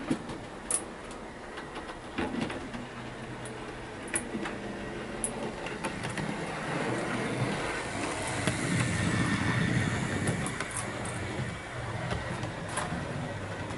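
Heljan OO-gauge Class 14 model diesel locomotive running on the layout track, its wheel and motor noise building to a peak about eight to eleven seconds in as it passes, then fading, with scattered light clicks.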